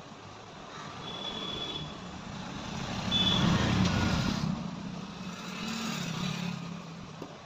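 A motor vehicle passing on the road, swelling to its loudest about three to four seconds in and then fading, with a few short high beeps.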